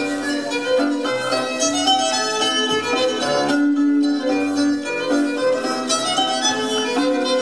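Instrumental folk dance tune: a string melody of quickly changing notes, with no singing.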